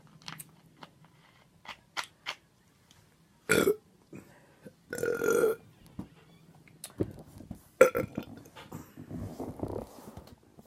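A woman burping. The longest and loudest burp comes about five seconds in, with a shorter burst just before it and small clicks scattered around them.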